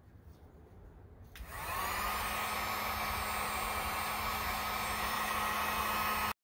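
Electric heat gun switched on about a second and a half in: its fan spins up with a brief rising whine, then blows steadily, aimed at an old mower-deck decal to soften its glue. The sound cuts off suddenly near the end.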